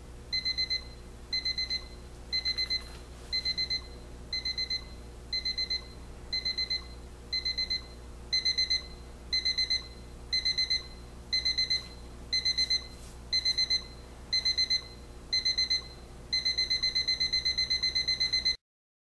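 Crosley battery quartz alarm clock's escalating beep alarm: short groups of rapid high electronic beeps about once a second, getting louder partway through. Near the end the beeping runs on without pauses, then cuts off suddenly.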